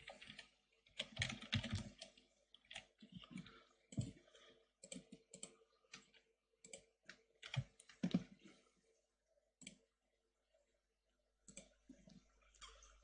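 Typing on a computer keyboard mixed with mouse clicks: irregular, uneven keystrokes that stop for about two seconds near the end before a few more clicks.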